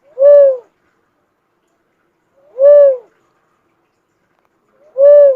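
Call of the bird known in Bicol as the kobawon: a single hooting note, slightly rising then falling, repeated three times about two and a half seconds apart, each lasting about half a second.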